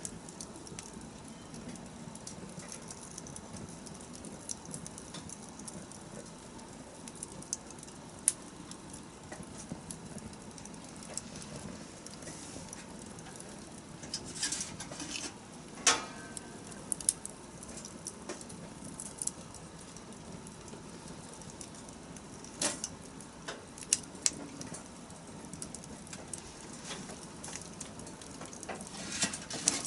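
Wood campfire crackling: a steady low hiss with scattered sharp pops and snaps, a small cluster of them around the middle.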